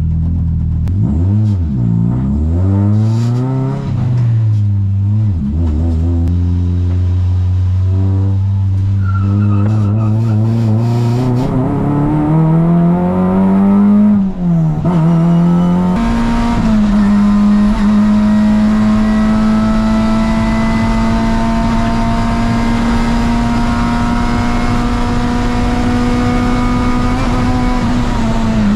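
Toyota Vios race car's 1NZ four-cylinder engine running hard on track. Its pitch falls and climbs several times through gear changes in the first half, then holds a long note that rises slowly and drops near the end.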